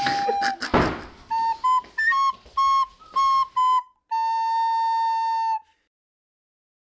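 Short playful music cue on a flute-like wind instrument: a run of short staccato notes, then one long held note that cuts off about two-thirds of the way through. A brief noisy swish sounds about a second in.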